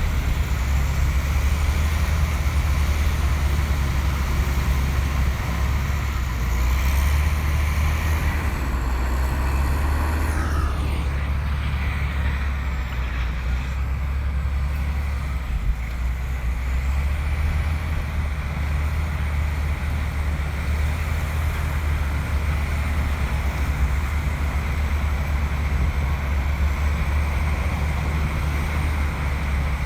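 Bulldozer's diesel engine running steadily under load, a deep rumble with mechanical noise, and a brief falling whine about ten seconds in.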